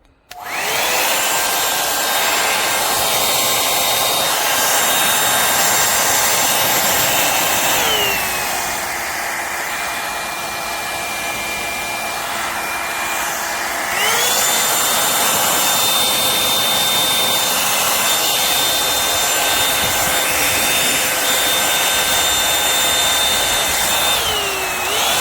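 Revlon One-Step Volumizer hot air brush switched on, its fan motor running with a steady rush of air and a motor whine. The whine drops to a lower speed about 8 seconds in, comes back up to full speed about 14 seconds in, and winds down as it is switched off at the end.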